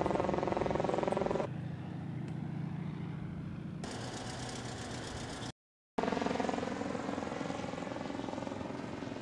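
Single-engine propeller airplane droning overhead, cut off abruptly about one and a half seconds in. Quieter outdoor sound with a low steady hum follows, then a brief drop to total silence past the middle and a steady drone again near the end.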